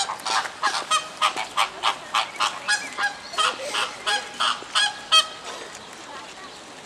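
A flock of flamingos honking in goose-like calls, about three a second. The calls stop a little past five seconds in.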